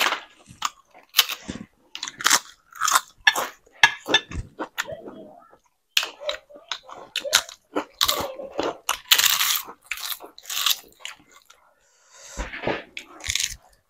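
Close-miked chewing and crunching of crisp fried papad, a quick run of sharp crunches with a couple of short pauses.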